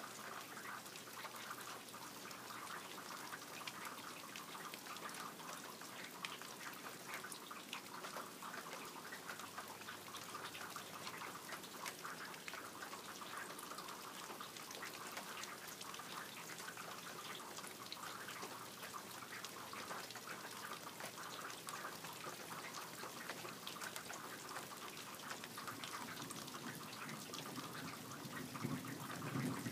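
Rain falling steadily, with many small drop ticks, and a low rumble of distant thunder building near the end.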